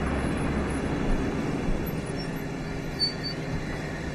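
Minibus engine running and its tyres on the road as the bus drives up and pulls in, a steady low rumble.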